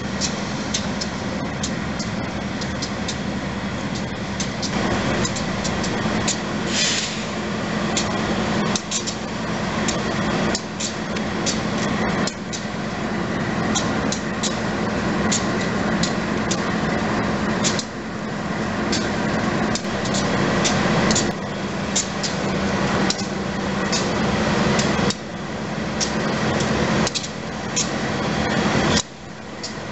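Union Pacific GE AC44CW diesel-electric locomotives running as they approach and pull alongside: a steady low engine rumble that grows louder, with many sharp clicks and clanks throughout.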